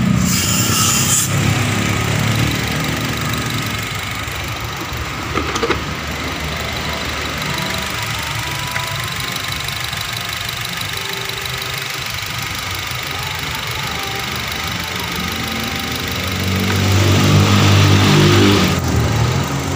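Honda Mobilio's four-cylinder petrol engine idling steadily while a carbon-cleaning fluid fed into the intake manifold burns off. It is revved up briefly right at the start and again near the end.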